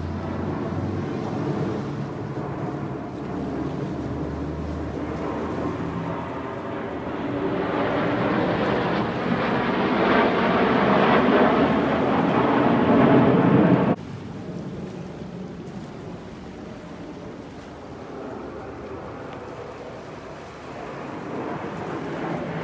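Roar of the Patrouille de France's Alpha Jets passing in formation, a rushing rumble. It swells to its loudest about halfway through, then cuts off abruptly to a quieter, steady rumble.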